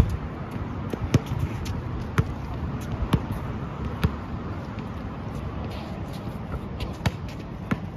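Basketball dribbled on an outdoor hard court: sharp bounces about once a second for the first four seconds, then a few scattered thumps, over a steady background hiss.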